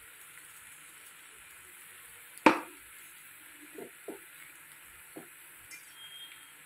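A cooking spoon knocking against a kadai of pasta as spices are added and stirred in: one sharp knock about two and a half seconds in, then a few softer knocks.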